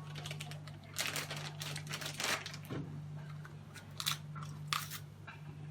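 Irregular rustling and crinkling handling noises in short strokes, over a steady low hum.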